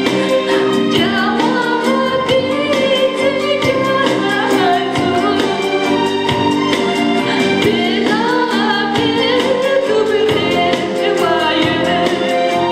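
A woman singing solo into a microphone over sustained accompanying chords, her voice sliding and bending between notes.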